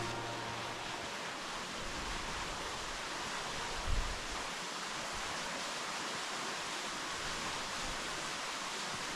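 Steady rushing noise, strongest in the upper range, with one brief low thump about four seconds in.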